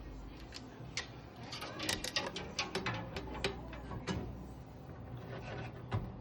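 Scattered sharp clicks and light knocks of a motherboard being fitted into a PC case, most frequent about two to three seconds in.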